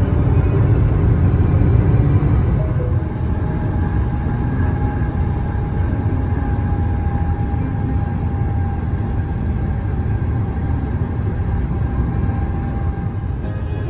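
Steady low rumble of tyre and road noise heard inside a car's cabin at highway speed.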